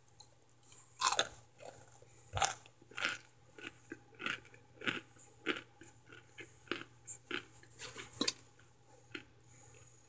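Chewing and biting into a hard, microwaved chunk of laundry starch: a loud crisp crunch about a second in, then a steady run of sharp crunches about twice a second that stop shortly before the end.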